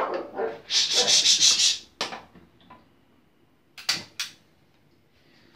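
Scratchy handling noise of the phone rubbing against a shirt for about a second, then a click. About four seconds in come two sharp clicks as a stove lighter is sparked at the gas burner.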